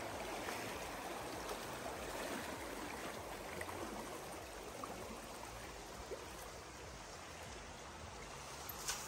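Fast-flowing stream running over a shallow, rippled bed: a steady, even rush of water.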